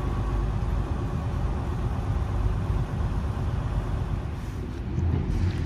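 Semi truck's diesel engine running at low speed as the tractor-trailer is turned and parked, a steady low rumble.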